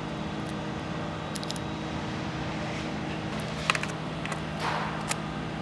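Steady background hum of workshop machinery or ventilation, with a few faint short clicks and rustles from hands handling packing tape.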